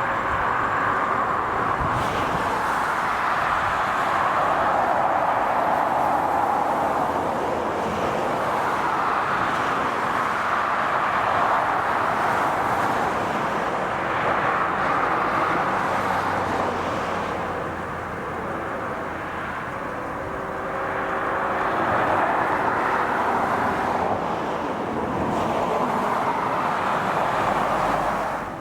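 A freight train's cars rolling past on the rails: a steady, loud rush of wheel and rail noise that swells and eases a little partway through.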